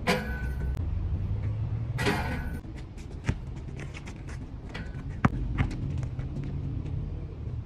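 Background music with sharp knocks of a basketball being dribbled on an outdoor court. A brief hissing burst comes at the start and again about two seconds in.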